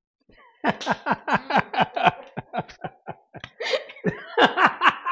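People laughing: a long run of quick, repeated bursts of laughter, starting about half a second in.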